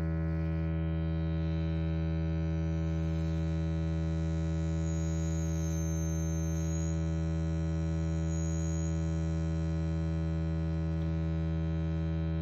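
Steady low synthesizer tone filtered through an Erica Synths Black Multimode VCF's low-pass output, swept by hand. The cutoff opens over the first second or two so the tone turns bright. Around the middle, turning up the resonance adds a high ringing peak that glides briefly, and near the end the tone starts to dull as the cutoff closes.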